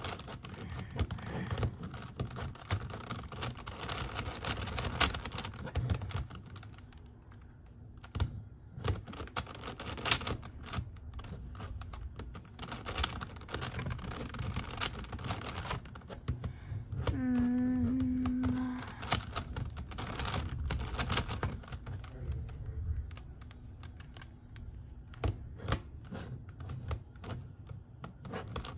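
Megaminx puzzle being turned rapidly by hand: quick plastic clicks and clacks of its faces rotating, in irregular runs with brief pauses.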